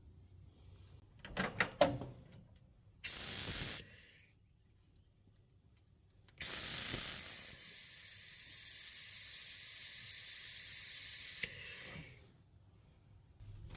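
Compressed air hissing through an air-compressor-driven vacuum brake bleeder, used to suck fluid from the clutch bleed nipple. It gives a short burst, then a longer steady hiss of about five seconds, with a few sharp clicks before the first burst.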